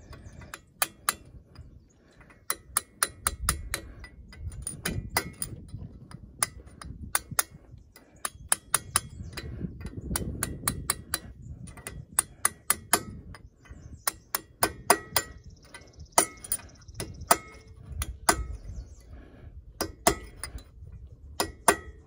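Steel hammer tapping a steel spring clip around the rim of a loader's bucket coupler pivot bore, driving it into its seat. Quick light taps come in irregular clusters, each with a short metallic ring.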